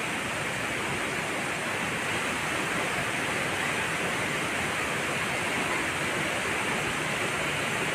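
Steady rushing of a tall waterfall: an even, unbroken roar of falling water.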